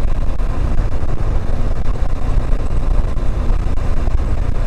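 Motorcycle riding at about 45 km/h in third gear: steady engine running under a constant rush of wind on the microphone, heaviest in a low rumble.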